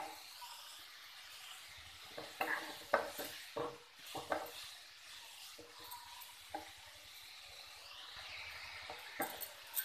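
Grated carrots sautéing in ghee in a non-stick kadhai, with a faint steady sizzle. A wooden spatula stirs them, its strokes scraping and knocking against the pan at uneven intervals.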